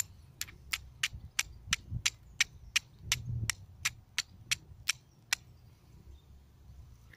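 Steel striker hitting a flint in a flint-and-steel fire kit, to throw sparks onto a piece of amadou tinder. The strikes are sharp clicks, about three a second, some sixteen in all, and they stop about two-thirds of the way through.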